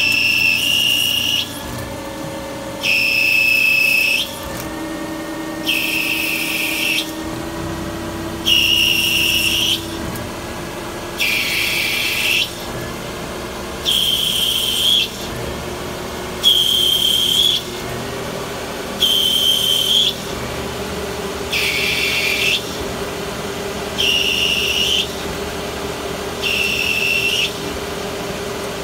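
CNC lathe threading the muzzle of a Ruger 10/22 barrel under flood coolant. A steady spindle hum runs underneath, and a high whistling hiss from the threading tool's cut lasts about a second and a half. The hiss repeats about every two and a half seconds as the tool makes pass after pass along the thread.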